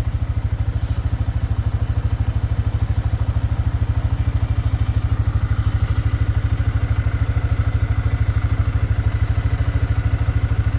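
Four-wheeler engine running steadily with an even low putter that holds the same speed throughout.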